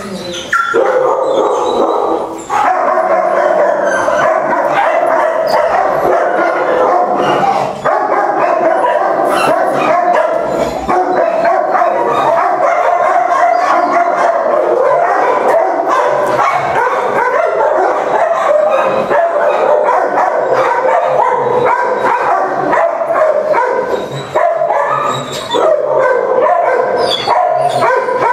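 Many kenneled shelter dogs barking, yelping and howling at once, a loud, continuous din of overlapping calls.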